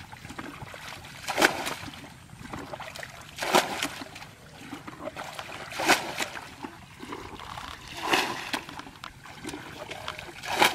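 Muddy water bailed out with a plastic bucket and thrown over a mud bank, splashing down about every two seconds, five times in all.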